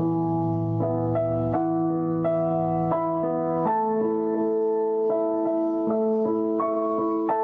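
Background music: a gentle piano melody with sustained chords.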